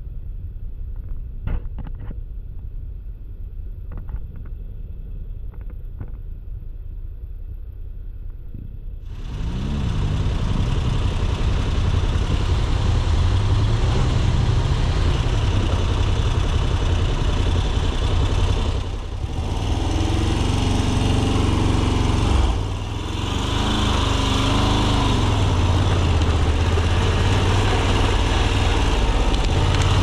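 Adventure motorcycle engine idling with a few clicks and knocks, then pulling away about nine seconds in and running loud under load over rough ground. The engine note dips briefly twice past the middle.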